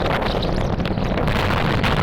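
Wind buffeting the microphone of a moving motorcycle, a steady rushing noise with rapid gusty flutter, with road and engine noise of the bike beneath.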